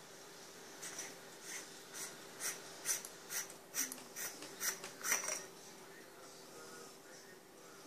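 Head of a Courui D01 LED flashlight being unscrewed from its body: about ten short dry rasps of the threads, roughly two a second, stopping about five seconds in as the head comes free.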